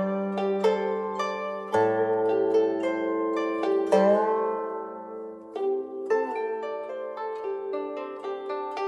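Background music on a plucked Chinese zither (guqin): single plucked notes ringing out, a few of them bending in pitch.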